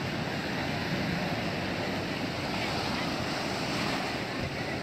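Muddy floodwater of a creek running high and fast over its banks, a steady rush of moving water, with wind on the microphone.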